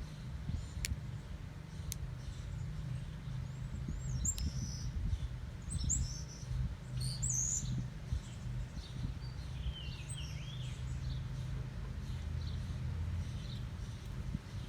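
Small birds chirping and warbling in short high calls, a cluster of them from about four to eleven seconds in, over a low steady rumble.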